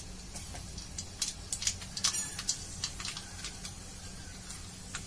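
Mustard and fenugreek seeds spluttering in hot oil in a kadhai: irregular sharp pops and crackles, a few a second. This is the tempering stage, when the seeds crackle before asafoetida goes in.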